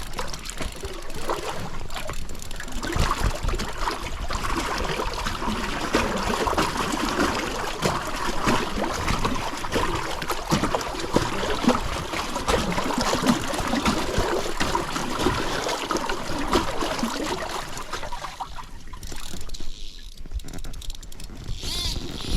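River water rushing and splashing around an inflatable raft, a steady crackling wash that eases off near the end.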